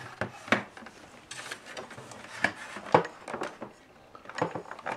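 Irregular clicks and light knocks of a juicer's plastic parts, wiring and stainless steel housing being handled as its circuit board is worked loose, the sharpest about half a second in and about three seconds in.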